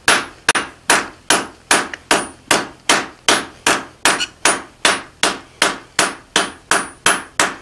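Hand hammer striking the red-hot end of a steel bar on the anvil face in a steady rhythm, about two to three blows a second, each with a short ring. The smith is beveling the end of a newly forged holdfast, knocking its sharp corner off.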